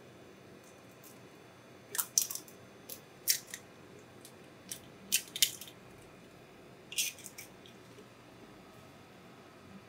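An egg being cracked and dropped onto a buckwheat galette in a frying pan: several short, crisp crackling clicks in clusters, the loudest about two seconds in and again around five seconds.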